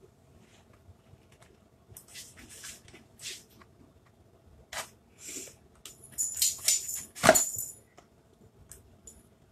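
A tightly taped cardboard box being worked open: packing tape and cardboard scraping and tearing in short scratchy bursts, coming faster and louder toward the end with the loudest rip about seven seconds in.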